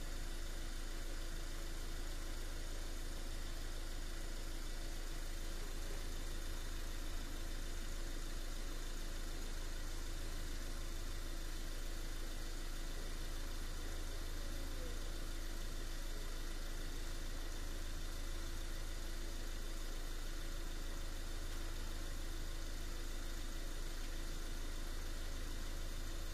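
An engine idling steadily, a low even hum that does not change.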